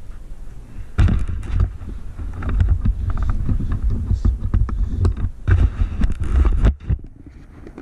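Irregular gusts of low rumble with scattered knocks: wind buffeting and handling noise on the microphone.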